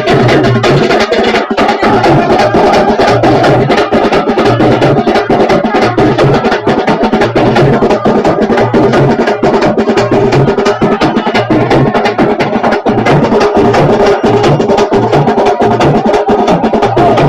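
Loud, fast drumming by a percussion group, a dense run of sharp strokes over a repeating low bass-drum beat, with a steady held tone sounding above it.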